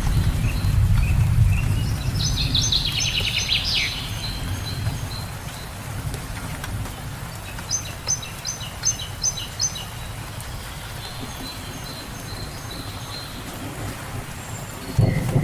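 Steady rain with birds chirping: a quick descending trill about two to four seconds in, and a run of short repeated chirps around eight to ten seconds in. A low thunder rumble fades out over the first few seconds, and another begins at the very end.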